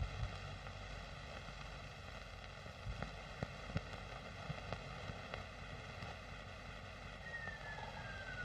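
Steady hiss of an old optical film soundtrack, with a handful of scattered clicks and crackles. Near the end a thin whistle-like tone slides slowly down in pitch.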